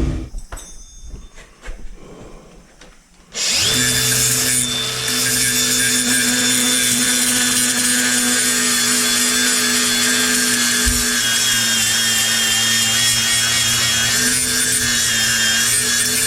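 Power tool cutting metal: after a few seconds of quiet clatter it starts suddenly and runs steadily with a high whine.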